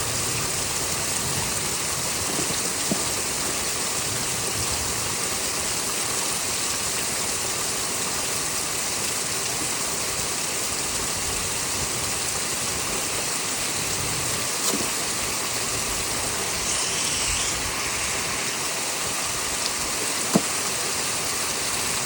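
Heavy rain and gusting wind of a thunderstorm, a steady rushing hiss, with a few brief sharp clicks, the sharpest near the end.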